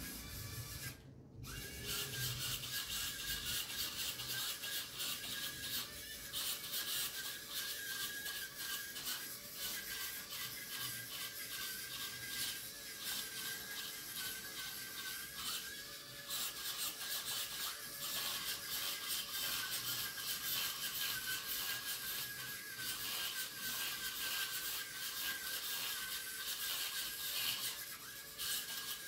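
Small geared DC motors of a phone-controlled hobby robot car buzzing as it drives, with a steady high whine.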